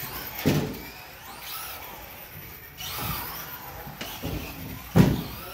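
TLR 22 5.0 Elite 1/10 electric RC buggy running laps on a carpet track, its motor whine rising and falling as it speeds up and slows. Two loud thumps, about half a second in and near the end.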